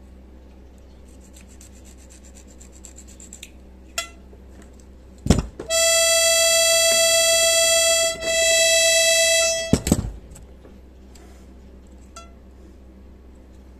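A single accordion reed sounding one steady, reedy note, held for about two seconds, then again at the same pitch for about a second and a half, to check its pitch by ear during tuning. Faint quick scraping of a file on the reed comes first, and handling knocks sit just before and after the notes.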